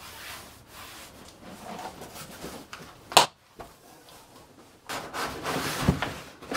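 Cardboard box and packing being handled: light rustling and scraping, one sharp knock about three seconds in, and a louder stretch of scraping rustle with a dull thump near the end.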